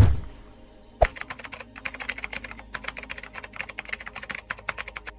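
A low thump at the start, then a sharp click about a second in, followed by a fast, uneven run of sharp clicks, about ten a second, that stops just before the end.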